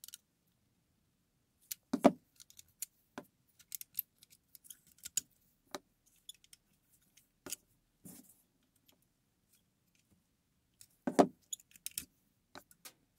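Pressed-steel Tonka toy truck being taken apart by hand: scattered metal clinks, clicks and clatter as its steel axles and wheels are worked out of the chassis with pliers. Two louder knocks come about two seconds in and near the end.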